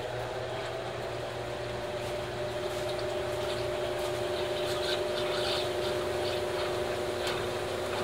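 Colormaq 15 kg top-load washing machine in its intermediate spin, the basket spinning with a steady hum of two held tones. Scattered light ticks come in from about three seconds in.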